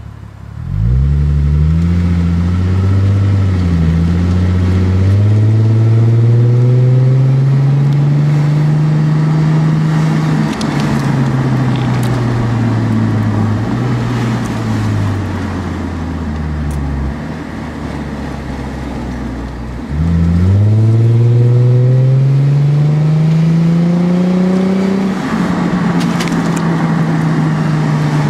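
Exhaust note of a 2006 Lexus IS250's V6 through a Greddy SE cat-back exhaust, heard right at the tailpipe while driving. The engine pulls up through the revs from about a second in, with the pitch dropping at upshifts near four and ten seconds, eases off for a few seconds, then accelerates hard again about twenty seconds in. After another shift it settles into a slowly falling drone.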